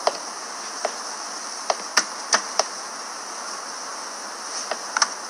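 Steady high-pitched hiss of outdoor background ambience, with a handful of short sharp clicks at irregular intervals.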